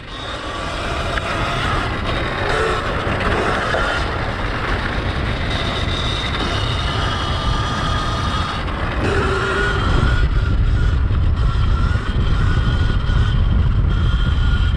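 Wind buffeting the microphone in a loud, low rumble that grows heavier in the second half. Under it is the thin, shifting whine of a 72-volt Sur-Ron electric dirt bike's motor as the bike rides over grass.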